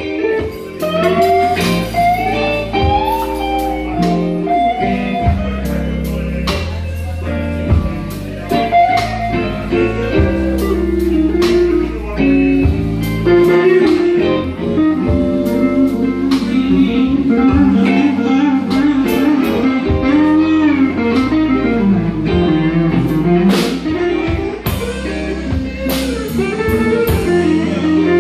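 Live blues band playing: an electric guitar lead with bent notes over bass and drums.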